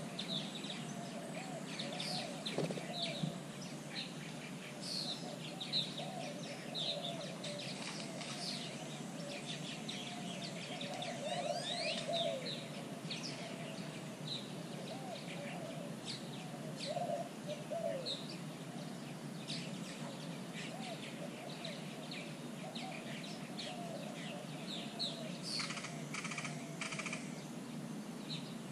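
A chorus of wild birds calling: many short high chirps and whistles over a steady, lower, wavering run of calls, with a brief rattling series near the end.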